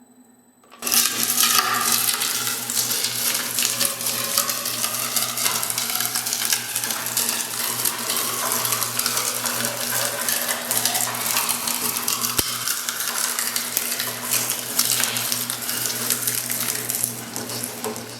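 Industrial shredder running and crushing material: dense crunching and clattering over a steady motor hum. It starts suddenly about a second in and stops abruptly near the end.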